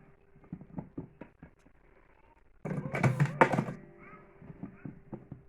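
Electric slim cigarette rolling machine: light clicks and knocks of handling, then about two and a half seconds in a loud, rattling run of the machine lasting just over a second.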